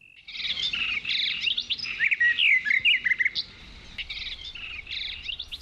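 Many small birds chirping together in a busy chorus of short, overlapping calls, starting a moment after a brief gap.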